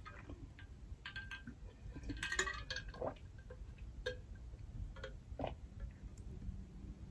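Drinking from an insulated stainless-steel water bottle: faint gulps and scattered light metallic clinks.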